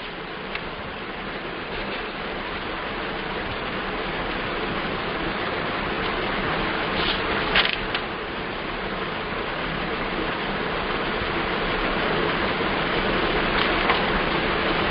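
A steady hiss of noise that grows slowly louder, with a few faint clicks.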